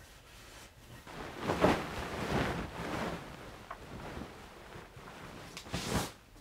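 Bed sheets and clothing rustling as someone moves on and beside a bed: a few soft swishes, the longest from about one and a half to three seconds in and a short sharper one near the end.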